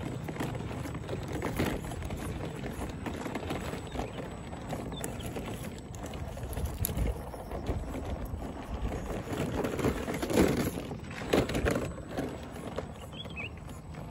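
Small 4×4 RC crawler truck driving over loose soil and stones: tyres crunching and rocks knocking and clattering irregularly, with a couple of louder knocks about two-thirds of the way through.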